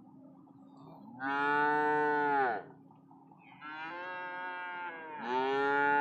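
Calf bawling three times in long calls, the middle call quieter than the other two.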